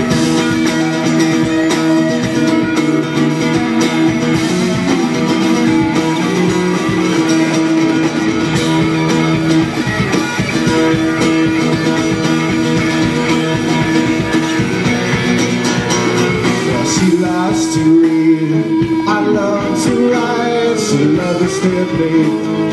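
Live rock band playing, with an electric guitar played through a Marshall amplifier.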